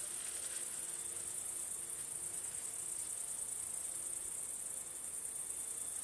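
Crickets chirping: a steady, high-pitched insect chorus with no break.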